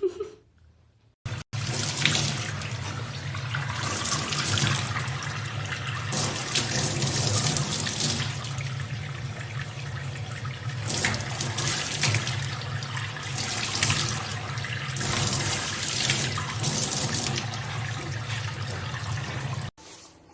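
Water running steadily from a tap. It starts abruptly about a second and a half in and cuts off just before the end.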